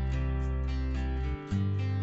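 Background music led by a strummed acoustic guitar, with a short break about a second and a half in.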